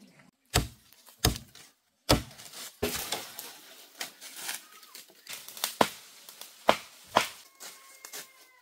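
A blade chopping into wood: a series of sharp, heavy strikes at irregular intervals.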